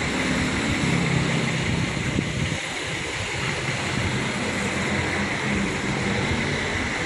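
Steady hiss of wind on the microphone over the low hum of a bus's diesel engine idling.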